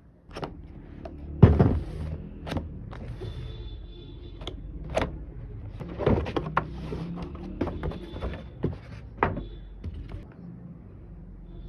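A series of irregular sharp clicks and knocks, about ten of them, over a steady low rumble, the loudest about a second and a half in.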